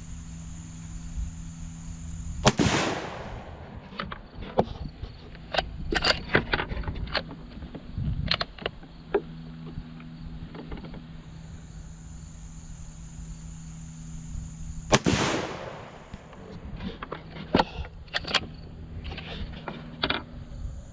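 Two rifle shots from a Swedish M96 Mauser in 6.5×55mm, about twelve seconds apart, each with a ringing echo after it. Between and after the shots come sharp clicks and clacks of the bolt being worked.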